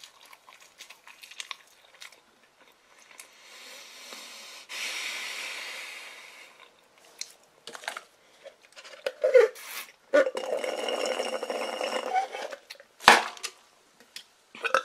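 A drink sucked up through a straw from a paper soft-drink cup for about two seconds, followed by a sharp knock as something, likely the cup, is set down. A softer hiss comes earlier.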